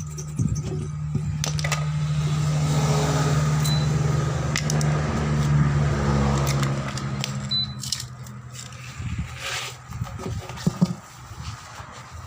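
A workshop machine's motor hums steadily for about seven seconds and then stops, followed by scattered metallic clicks and knocks.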